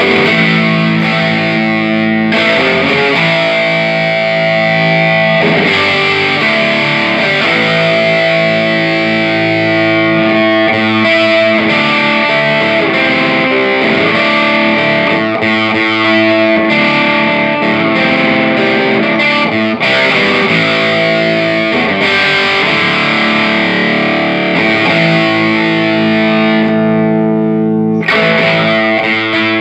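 Electric guitar played through a Peavey Classic 30 tube combo amp on its overdriven channel: distorted chords and sustained notes, loud and continuous. The amp is working again after its bad filter capacitors were replaced.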